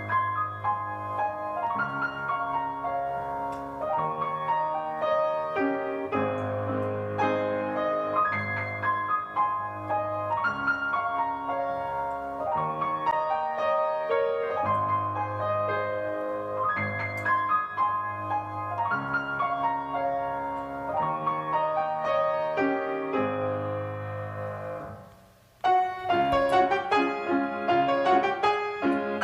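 Piano music: slow chords over held bass notes. It drops out briefly about 25 seconds in, then comes back with quicker, higher notes.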